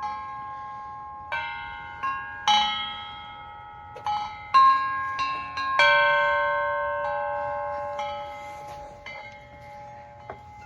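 Large tubular wind chimes struck by gusts of wind: irregular clusters of clear ringing tones, each note ringing on and slowly fading. The loudest strikes come about four and a half and six seconds in.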